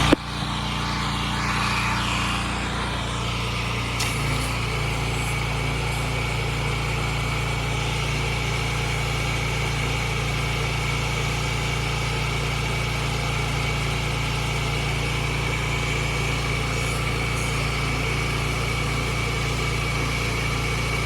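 Pressure washer's engine running steadily at a constant speed.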